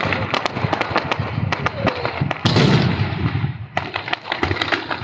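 Fireworks going off close by: a dense run of crackling pops, with a louder blast about two and a half seconds in, thinning out near the end.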